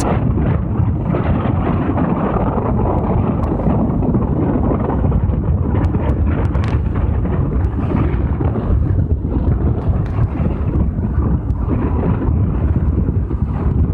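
Wind buffeting the microphone: a loud, steady low rumble with no let-up.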